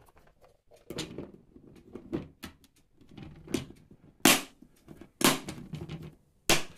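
Plastic lid of a Sistema microwave container being pressed down and its clip latches snapped shut: several sharp plastic clicks, the loudest in the second half, with softer handling rustle between.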